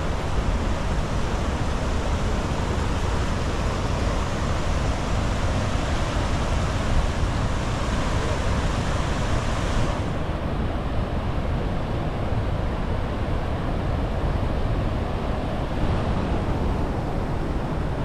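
Steady roar of Niagara Falls' falling water, with wind rumbling on the microphone. The upper hiss thins out abruptly about ten seconds in.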